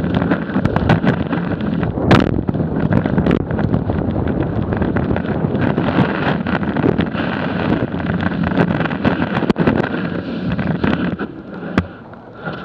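Snowboard sliding fast over rough, chopped-up snow, the board's hiss and scraping heard up close through a camera mounted on the board, with scattered sharp knocks over bumps and wind on the microphone. Near the end it slows and goes much quieter as the board comes to a stop.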